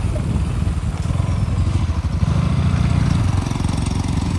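KTM Duke 200's single-cylinder engine running steadily as the motorcycle is ridden at low speed, a low rumble that swells a little about halfway through.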